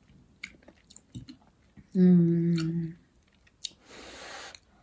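A person eating soft boiled filled pasta: quiet mouth clicks of chewing, then a loud, steady "mmm" hum of approval about two seconds in. Near the end comes a click and a short breathy puff of air as a forkful is lifted to the mouth.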